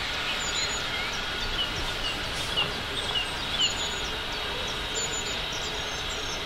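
Small birds chirping repeatedly over a steady hiss of steam from locomotive 2999 'Lady of Legend' standing at the platform.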